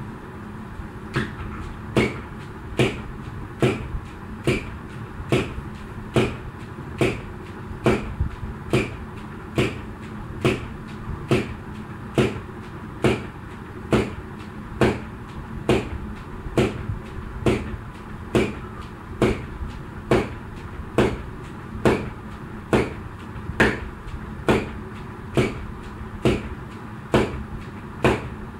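Jump rope turning, its strikes on the floor and the landing feet giving sharp, evenly spaced slaps a little more than once a second, over a steady background hum.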